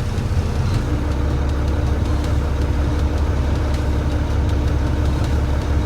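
Volvo VNL 670 semi truck's diesel engine running at raised idle RPM, a steady low rumble. About a second in the engine note steps up, with a steady hum joining and holding.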